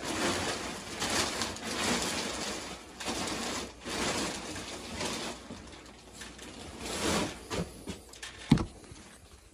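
The thin dust cover from the underside of a box spring being pulled off and balled up, rustling and crinkling in repeated swells that die down after about seven seconds. Near the end comes a single sharp knock, the loudest sound.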